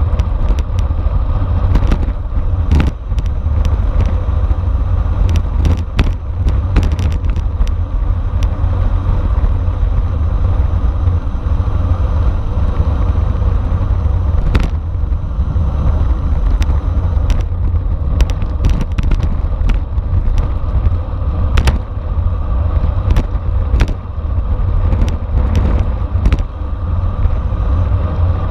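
Wind buffeting the microphone and rough road noise from a racing bicycle at speed, a steady heavy rumble, with scattered sharp clicks and rattles throughout.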